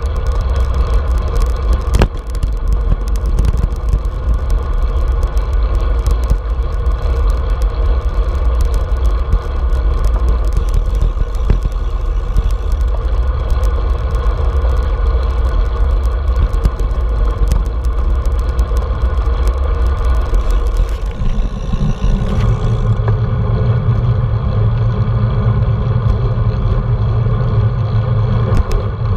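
Wind buffeting a handlebar-mounted action camera's microphone, with tyre noise from a road bike rolling on asphalt. About 21 seconds in the hiss drops away and a lower hum takes over.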